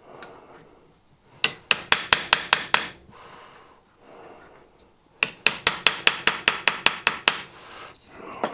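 Small ball-pein hammer tapping gasket paper laid on a steam engine's metal cover, cutting out the gasket against the cover's sharp edges. Two runs of quick light taps, five or six a second: one about a second and a half in, the other about five seconds in.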